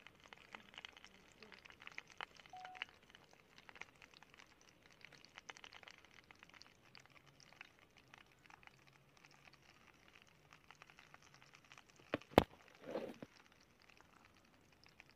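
Scissors snipping the dried fibre ties of a banana-leaf fish parcel, with faint crinkling of the leaf and light scattered clicks. One sharp, loud click about twelve seconds in, followed by a short muffled sound.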